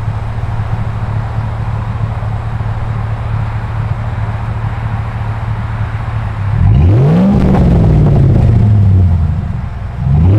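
A 2006 GMC Sierra 1500's Vortec V8 idling steadily through a Flowmaster Super 10 muffler with a turndown tip. About six and a half seconds in it is revved once: the pitch climbs, holds for about two seconds and falls back to idle. A second rev starts at the very end.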